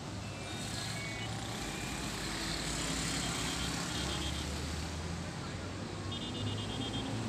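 A truck engine idling as a low, steady hum, with faint rapid high beeps in a few short spells.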